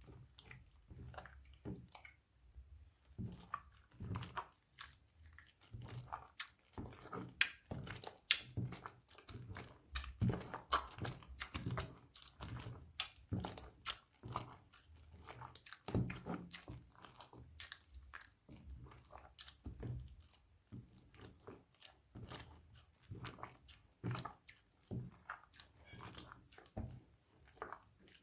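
Slime being squished and worked, making a dense, irregular run of sticky wet clicks and crackling pops.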